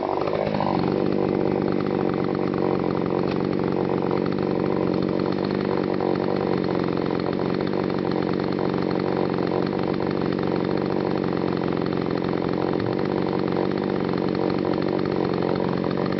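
TimberPro CS-6150 62 cc two-stroke chainsaw running steadily at a lowered, pulled-down pitch under load as it cuts through dense green honey locust.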